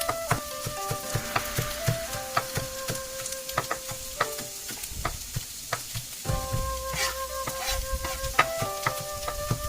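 Food sizzling in a hot pan while it is stirred, with frequent sharp clicks and knocks of the utensil against the pan, under background music with a simple melody.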